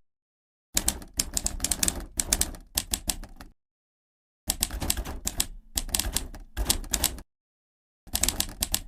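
Typewriter keystroke clicking, rapid and dense, in three runs of about three seconds each, with dead silence between the runs.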